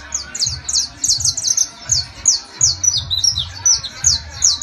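Caged saffron finch (canario criollo) singing: a fast, steady run of sharp, high, downward-slurred notes, about five a second.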